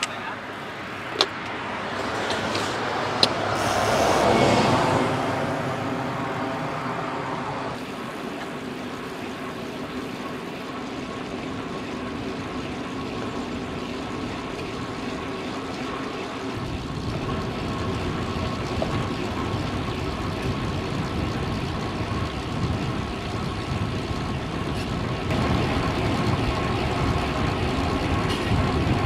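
Road traffic heard from a moving bicycle: a vehicle passes, loudest about four seconds in, then steady road noise. A low rumble grows from about halfway through.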